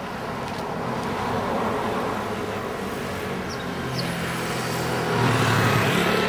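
Street traffic: a motor vehicle's engine running and growing louder, loudest near the end as it comes close.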